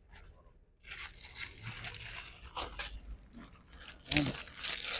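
Plastic sachet packaging crinkling and rustling in irregular crackles as goods, including a strip of sachets, are handled and pulled from a shop shelf.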